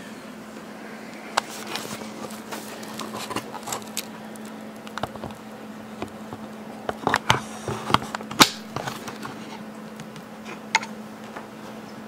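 Handling noise of a camera being moved about and set back on its tripod: scattered light clicks and knocks, bunched a little past the middle, over a steady low hum.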